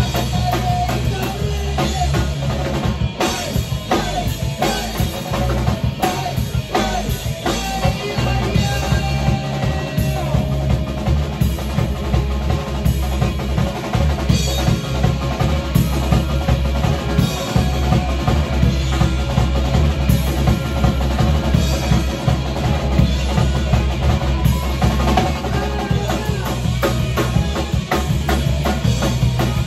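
A rock band playing loud in a small rehearsal room: electric guitars and bass over a drum kit with steady bass-drum and snare hits.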